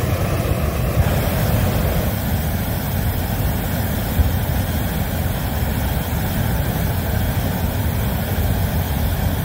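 Hot air balloon inflator fan's engine running steadily.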